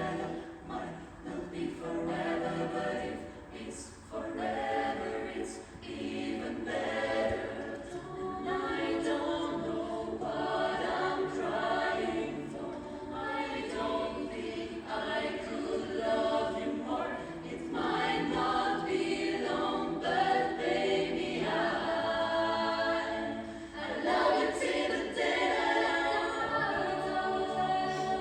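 Pop vocal ensemble singing a cappella in close harmony, with rhythmic vocal accompaniment under the melody and a brief drop in level about 24 seconds in.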